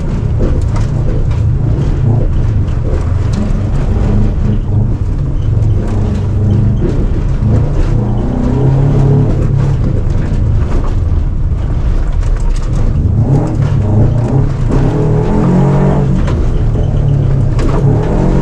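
Rally car's engine heard from inside the cabin while it is driven hard on a dirt course. The revs keep rising and dropping with throttle and gear changes. Frequent knocks and rattles come from the rough track.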